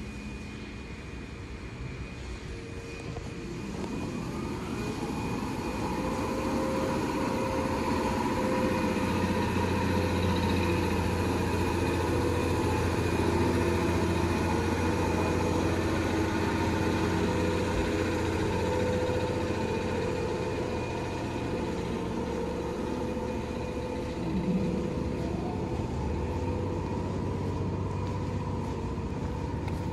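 Toyama Chiho Railway 14760-series electric train moving slowly along the platform, a steady electrical hum with wheel and running noise. The sound builds over the first several seconds, stays at its loudest through the middle and eases a little toward the end.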